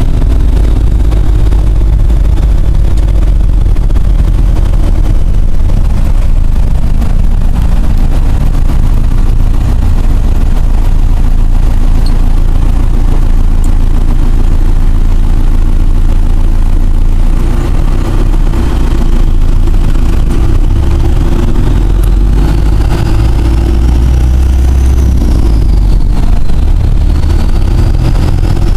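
4BT Cummins four-cylinder turbo diesel running steadily while driving, heard loud and distorted from inside the uninsulated cab of a 1971 Dodge pickup. Past the middle, a turbocharger whine comes up and rises in pitch, dips briefly, then climbs again near the end.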